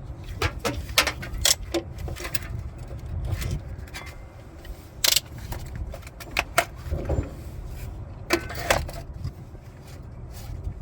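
Irregular clicks, clinks and knocks of metal tools and parts being handled over a low rumble, with no impact wrench running.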